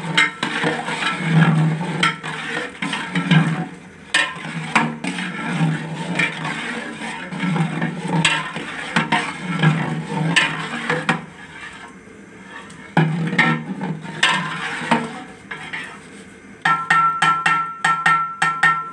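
Long-handled metal ladle stirring a thin haleem mixture in a large aluminium pot: irregular scrapes and knocks against the pot, with a stirring stroke about once a second. Music with a quick, even plucked rhythm comes in near the end.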